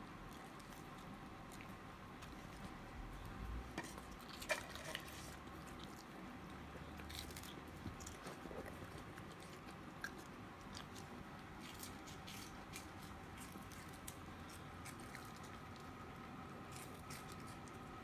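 Faint chewing and crunching of puffed snack crunchies, with scattered small clicks, the loudest about four and a half seconds in.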